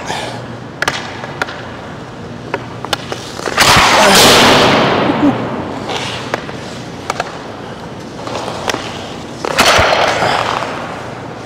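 Bauer Nexus League hockey stick blade tapping a puck in light clicks while stickhandling, then two shots, about four seconds in and near the end. Each shot is a sharp smack of the stick on ice and puck followed by a burst of scraping noise that rings on in the arena's echo.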